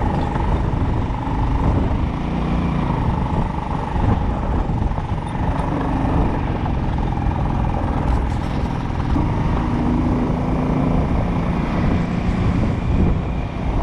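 Vehicle engine running steadily on the road, with continuous low road and wind noise and a faint steady whine.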